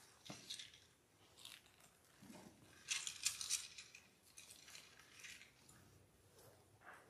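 Bible pages being turned and leafed through on a lectern: several short, crisp paper rustles, the loudest about three seconds in.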